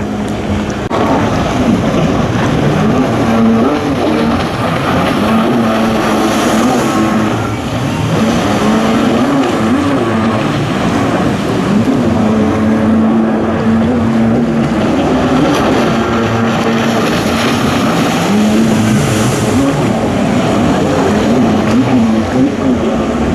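Jet ski engines racing, their pitch rising and falling again and again as the throttle is worked through the slalom turns.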